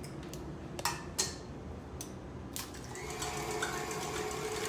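A few sharp taps, then an electric mixer starts about three seconds in and runs steadily on medium speed, beating eggs until they are light and foamy.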